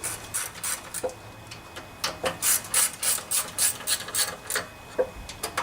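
Socket ratchet wrench clicking as bolts are run in: a few scattered clicks at first, then a steady run of about three clicks a second from about two seconds in.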